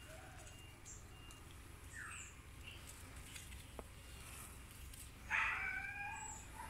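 A chicken calls once, a little over a second long, about five seconds in; it is the loudest sound here. Before it come a few faint, short, high chirps of small birds.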